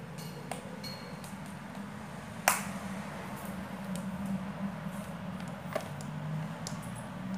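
A few sharp clicks and light clinks from the metal chain strap of a small Michael Kors crossbody bag being handled and slipped over the shoulder, the loudest click about two and a half seconds in, over a steady low hum.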